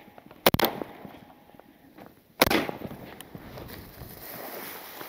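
Shotgun blasts at flying ducks: a sharp double report about half a second in, then a single shot about two seconds later.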